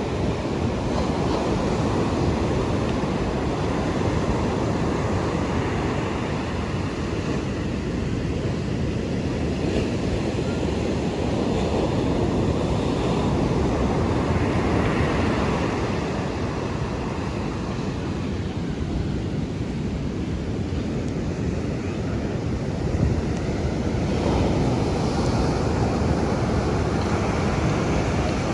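Ocean surf washing onto a beach, rising and falling slowly, with wind buffeting the microphone.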